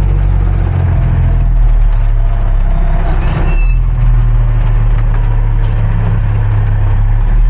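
Peterbilt semi-truck's diesel engine running under light throttle, heard from inside the cab as the truck creeps along, its pitch shifting a couple of times. A short high squeal sounds about three and a half seconds in.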